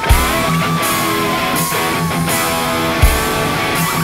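Rock music with electric guitar and drums, with a steady beat and a heavy drum hit at the start and another about three seconds in.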